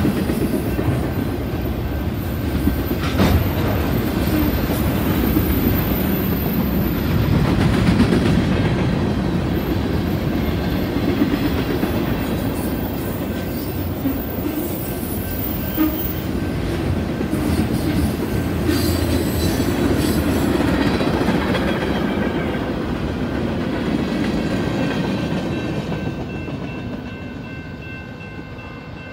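Autorack cars of a BNSF freight train rolling past, their wheels clicking over rail joints in a steady rumble that fades near the end as the train moves away.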